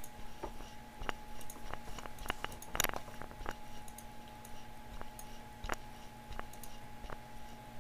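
Computer mouse clicking: single sharp clicks every second or so, with a quick run of clicks about three seconds in, over a steady hum.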